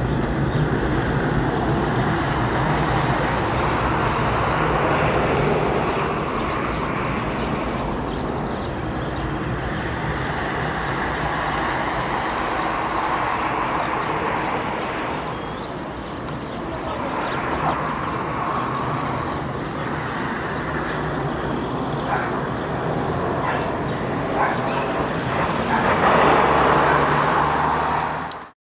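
Boeing 747-400's four jet engines at climb power after take-off, a steady low roar that ebbs a little midway and swells again near the end, then cuts off.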